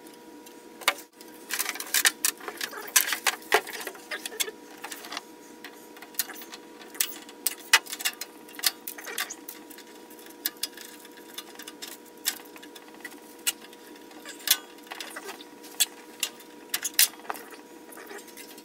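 Irregular clicks, knocks and rattles of hands working loose the plastic shield and sheet-metal tube housing of a rear-projection TV's three-tube assembly, with a faint steady hum underneath.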